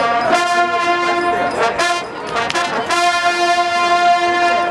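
Marching band brass section playing a long sustained note, cutting off about two seconds in and coming back with a second long held note.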